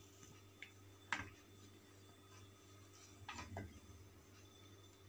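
Near silence broken by a few soft taps of a wooden spatula against the pan while stirring milk as it curdles: one tick about a second in and a small cluster of knocks around three seconds in.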